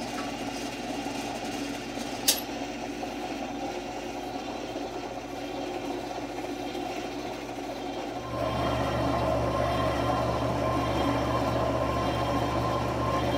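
Repaired Boice-Crane bandsaw running with a steady motor hum. There is a sharp click about two seconds in, and about eight seconds in the hum turns louder and fuller, with a higher steady tone added.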